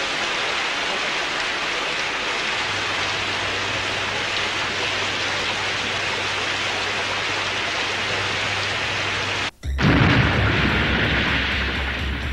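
Steady hiss of heavy rain, with a low hum joining about two and a half seconds in. Near the end the sound cuts out for an instant, and a deep explosion rumble takes over.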